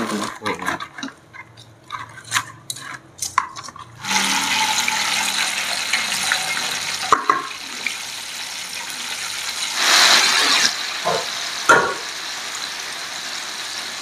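Metal tongs clicking and squelching through marinated egret pieces in a plastic bowl. About four seconds in, a sudden steady sizzle begins as the meat deep-fries in hot oil in a wok. The sizzle swells briefly about ten seconds in.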